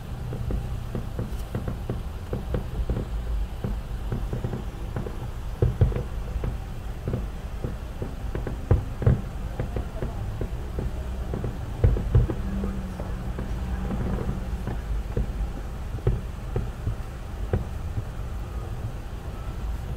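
Muffled thumps and booms of distant fireworks heard from inside a car, with the sharpest ones about a third, halfway and three-fifths of the way through, over a steady low rumble of the car and traffic.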